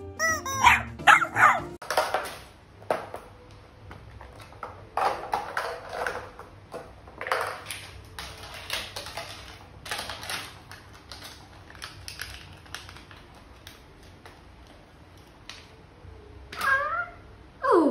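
A small puppy yapping in short, high yips, again and again, with a longer falling yelp near the end. At the very start there are a few loud, high, sliding squeals.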